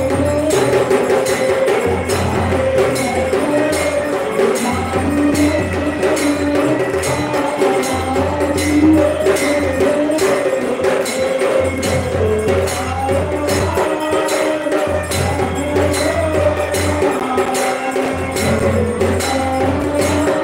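Temple devotional music with percussion: sharp metallic strikes a few times a second over a repeating low drum pulse, with a sustained melody running through it.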